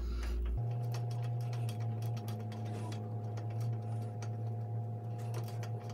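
Light, irregular metallic clicks and taps from a wrench and screwdriver working the nut and screw of a bicycle's coaster-brake arm clamp, over a steady low hum.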